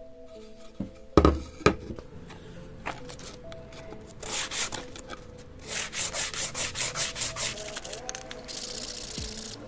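Sandpaper rubbed by hand back and forth over a wooden plate, a rasping stroke about three times a second starting about four seconds in. Two loud knocks about a second in.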